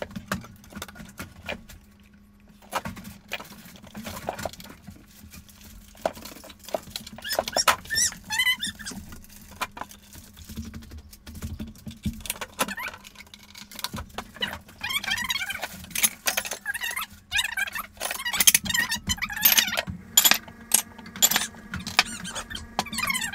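Plates and small items being moved about on the shelves of a wooden kitchen cabinet with a wire plate rack: scattered clinks, knocks and clatter.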